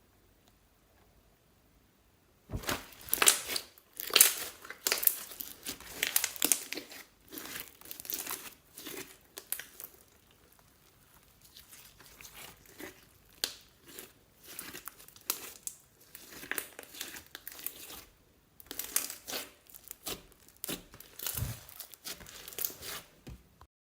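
Slime being squished and pulled apart by hand, giving irregular bursts of sticky crackling and popping. It starts after about two and a half seconds of near silence and pauses briefly twice.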